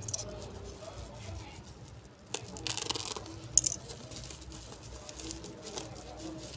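Bubble-wrap packaging rustling and crinkling as it is handled and torn open by hand, with a louder burst of crackling about two and a half seconds in and a sharp click about a second later.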